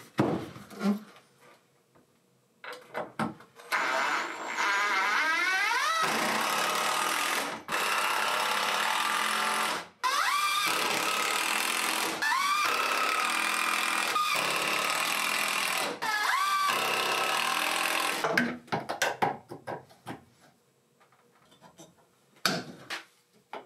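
Cordless impact driver driving screws into wooden framing, in about four long runs. Each run starts with a rising motor whine, then goes on as a steady loud whir. Some light clicks and knocks of hand tools follow near the end.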